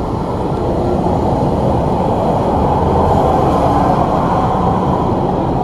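A TransJakarta city bus running close by at the platform, a steady low rumble of engine and road noise that slowly grows louder.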